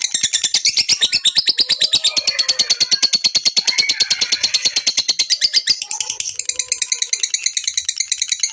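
Lovebird chattering in one long, unbroken run of sharp, high ticking notes, about a dozen a second: the long chatter that keepers call ngekek panjang.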